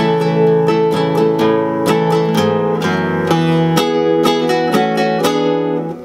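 Nylon-string classical guitar strummed in a steady rhythm, several strums a second, playing a D, D sus2, D7 and D7 sus2 chord sequence with open-string strums between the changes.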